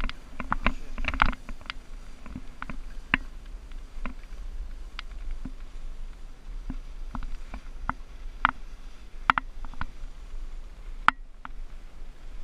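Skis running over slushy, tracked spring snow: a steady low rumble with irregular sharp clicks and ticks, thickest in the first second and a half.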